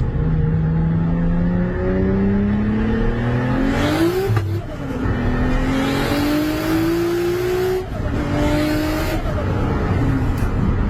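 A heavily tuned Toyota Supra engine pulling hard on a dyno, around 820 wheel horsepower. Its pitch climbs steadily, drops back sharply about four seconds in and again about eight seconds in, as it shifts up, and climbs again after each drop.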